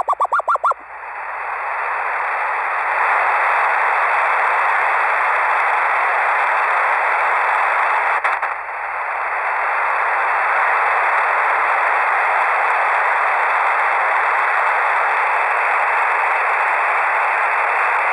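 Shortwave radio receiver tuned to UVB-76: a rapid run of short beeps in the first second, then steady static hiss, with one brief dropout about eight seconds in.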